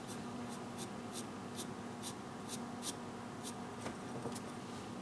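Wooden pencil scratching over paper in quick short strokes, about two or three a second, going over drawn lines to darken them.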